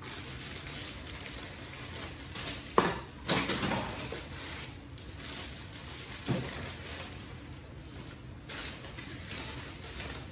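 Black bouquet wrapping crinkling and rustling as it is handled and gathered at the base of a large rose bouquet, with irregular louder crackles, the sharpest about three seconds in and again about six seconds in.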